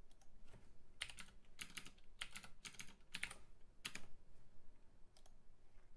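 Typing on a computer keyboard: a run of quick, light key taps, most of them between about one and four seconds in, as numbers are entered.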